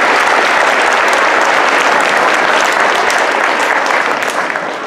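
Audience of children and adults applauding steadily, dying down near the end.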